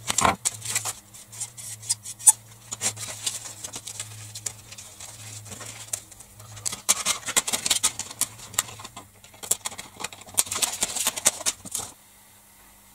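Hard clear-plastic CD jewel cases being handled and worked apart by hand: irregular sharp clicks, snaps and rustling of plastic. It stops about twelve seconds in.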